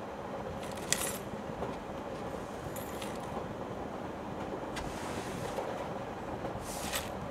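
Broom sweeping a floor in slow strokes: a short brushing swish about every two seconds, over a steady background hiss.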